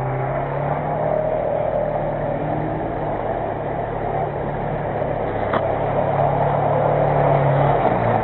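Nissan Terrano's engine running steadily under load as it ploughs through a muddy pool, with water and mud splashing around it, growing louder as it comes close near the end.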